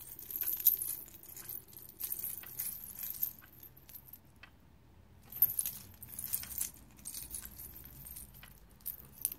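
A bundle of metal key rings and split rings hung with resin pendants jangling as it is handled, in several bursts of clinking with a quieter pause about halfway through.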